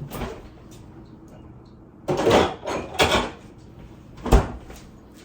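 Kitchen items being handled and put away: two short rubbing, sliding noises about two and three seconds in, then a single sharp knock a little after four seconds, as of a cabinet or drawer being shut.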